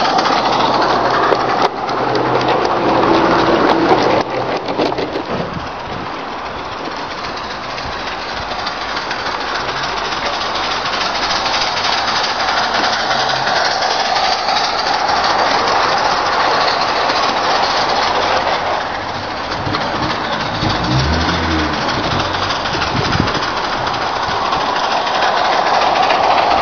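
A long rake of small SM32 garden-railway wagons rolling past on 32 mm gauge track: a dense, continuous clatter of many small wheels over the rails and joints, with a few low thumps in the last third.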